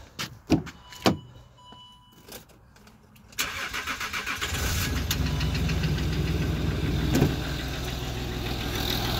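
A few clicks and a short electronic beep as the ignition is switched on, then the 2.7-litre TDV6 V6 diesel of a Land Rover Discovery 3 cranks and starts about three and a half seconds in and settles into a steady idle. This is the engine with a slight knock from the driver's side that the owner suspects is a cam follower or tappet.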